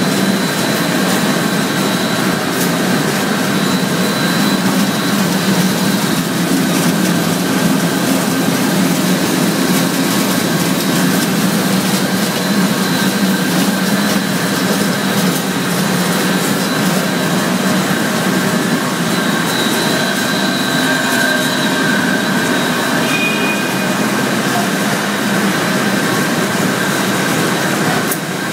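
Wolverine flaking mills running, with their counter-rotating chrome rollers and vibratory feeder trays for cornflakes, making a loud, steady machine noise with a few faint, constant whines over it.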